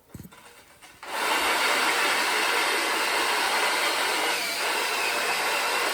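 Electric drill with a diamond core bit cutting through a stone tile, starting about a second in and then running steadily. It is at low speed near the end of the cut, where the bit could jam and snap the stone.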